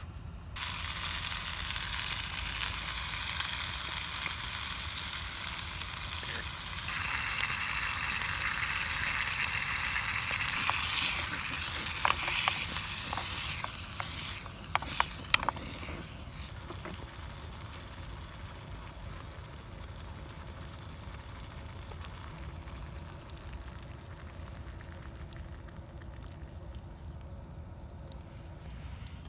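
Food frying in a hot cooking vessel over a campfire. The sizzle starts suddenly as the food goes in and stays loud for about a dozen seconds, with a few sharp clicks in the middle, then drops to a much quieter level.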